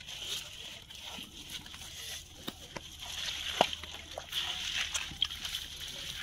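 Hands working through a wet mesh fishing net: small splashes and sloshing water with scattered light clicks, the sharpest about halfway through, over a steady high hiss.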